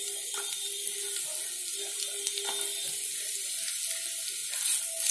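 Sliced onion frying in hot oil in a nonstick pan: a steady sizzling hiss with light crackles.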